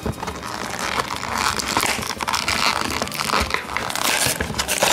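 Clear plastic toy packaging crinkling and crackling as it is handled and pulled open by hand.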